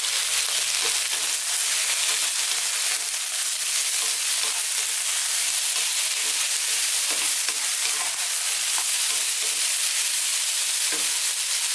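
Diced eggplant, onions and chickpeas sizzling steadily in hot oil on high heat, with a spatula scraping and tapping against the pan as they are stirred.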